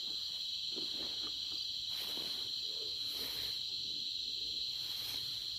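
A steady chorus of night insects, crickets trilling in one continuous high-pitched band without a break.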